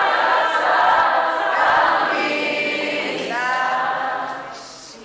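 Small mixed group of voices singing a worship song together. Near the end the group singing thins out, one voice carries a sliding line, and the sound fades.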